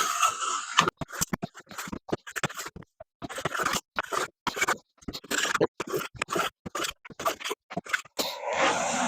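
Sandpaper rubbed by hand over a wooden board in quick, irregular scraping strokes, a few a second.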